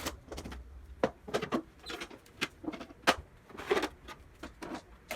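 Irregular handling noises on an espresso machine: about a dozen separate clicks, knocks and short scrapes, loosely spaced, with no steady running sound.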